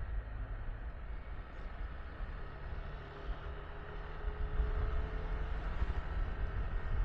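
Yamaha Tricity 155 single-cylinder scooter riding along, its engine note under heavy wind rumble on the camera microphone, picking up a little about halfway through.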